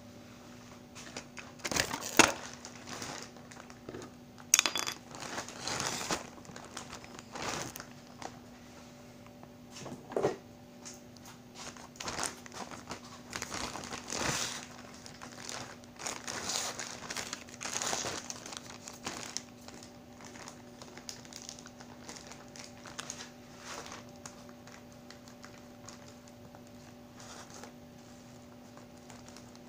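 Plastic courier mailer bag crinkling and rustling as it is handled and turned over, in irregular bursts with a couple of sharp loud crackles in the first few seconds, dying down for the last third.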